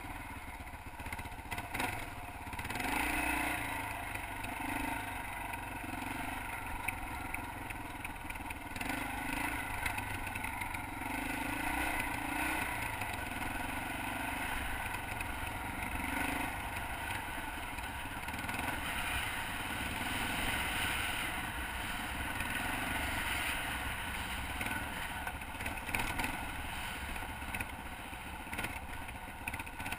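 Dirt bike engine running as the bike is ridden along a dirt track, its level rising and falling with the throttle.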